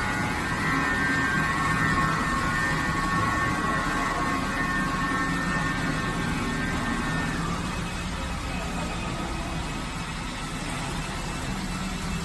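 Steady high whine of a CNC router spindle running, over a steady low machine hum; the whine fades out about seven seconds in while the hum carries on.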